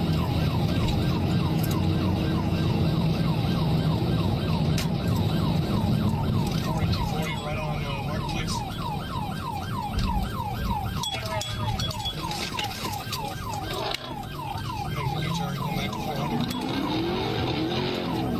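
Police car siren in yelp mode, sweeping rapidly at about three cycles a second, over the steady drone of a patrol car's engine during a high-speed pursuit.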